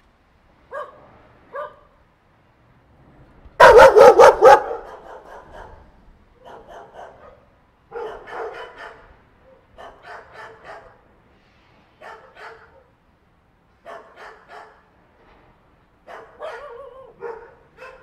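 Dogs barking in short clusters of quick barks, with a loud run of about five barks about four seconds in and quieter groups of barks after it.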